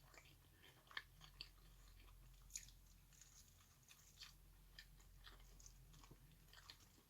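Faint chewing of crunchy fried chicken: scattered soft crunches and mouth clicks, a little louder about a second in and again about two and a half seconds in.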